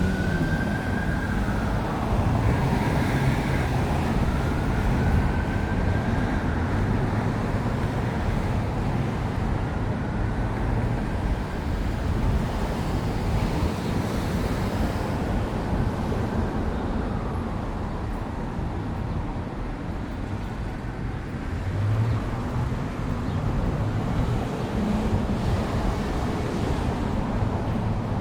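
Steady city street traffic, with an emergency vehicle siren wailing slowly up and down over it. The siren is clearest in the first several seconds and comes back faintly later.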